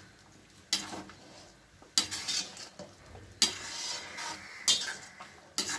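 Metal ladle stirring thick mutton gravy in a steel pan, scraping and clinking against the pan about five times.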